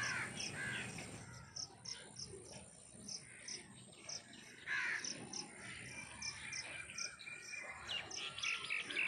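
An insect chirping steadily in short high pulses, about three a second. Bird calls sound over it, the loudest about five seconds in and a quick run of calls near the end.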